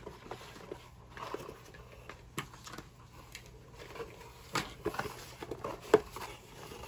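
Rustling and scattered light clicks and taps of a subscription box's packaging and products being handled and unpacked, with a sharper knock about six seconds in.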